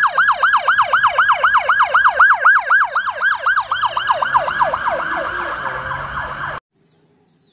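Police car siren on a fast yelp, sweeping up and down about six times a second. It cuts off suddenly about six and a half seconds in, leaving near silence.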